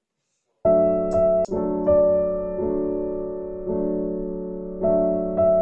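Background piano music begins about half a second in after dead silence: slow chords struck about once a second, each ringing and fading before the next.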